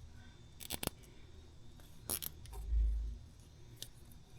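Short sharp clicks and a brief rasp of a plastic zip tie and tape being fastened around a hydraulic hose, with a dull low thump about two and a half seconds in.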